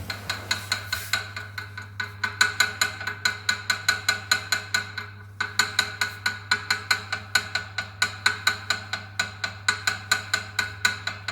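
Home exercise bike (hometrainer) rattling: a fast, even run of metallic clacks, about four to five a second, with a steady low hum beneath.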